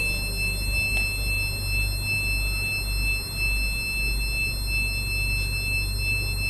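Film sound design: a steady high-pitched ringing tone, like ringing in the ears, held over a low rumble.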